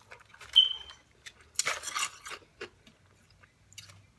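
Small eating and handling sounds at a meal table: scattered light clicks and taps, a brief clink about half a second in, and a short crunch or rustle at about a second and a half.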